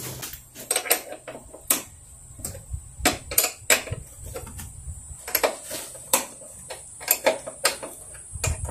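Hand tools working the bolts of the ABS actuator's metal mounting bracket as it is loosened: irregular sharp metallic clicks and clinks, roughly two a second.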